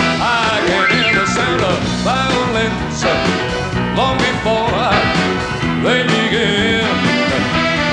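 Live band playing a cha-cha number, with piano and drums keeping a steady Latin beat under a gliding melody.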